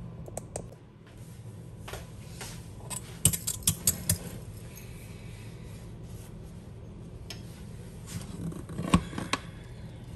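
Metal utensils knocking and clinking against a stainless steel cooking pot: a quick run of sharp clinks about three to four seconds in, and another knock near the end, over a low steady hum.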